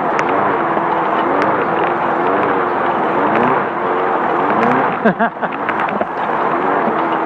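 Class 5/1600 race bug's air-cooled 1600 cc Volkswagen flat-four running hard off-road, its pitch rising and falling with the throttle under a constant rush of noise. About five seconds in the revs drop sharply and climb again, with scattered rattles and knocks.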